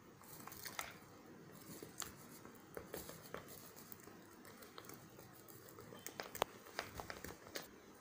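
Faint, irregular clicks and scrapes of a metal spoon against a small glass bowl as a cocoa-powder mixture is stirred.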